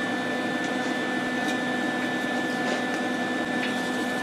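Steady droning machine hum with a constant whine that does not change, and a few faint light ticks over it.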